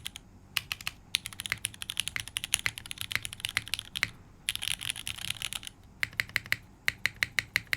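Typing test on a custom mechanical keyboard with fully modded and lubed linear Cherry MX2A Black switches, a carbon fibre plate and GMK keycaps: bursts of fast keystrokes with short pauses. About six seconds in it turns to a run of evenly spaced single strokes, about five a second, on the spacebar.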